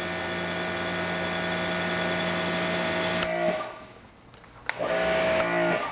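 Ryobi 2300 psi electric pressure washer running with water spraying through its turbo nozzle, a steady motor-and-pump hum with spray hiss. A little over three seconds in it winds down and stops when the trigger is released, its total stop system shutting the motor off. About a second later it starts up again.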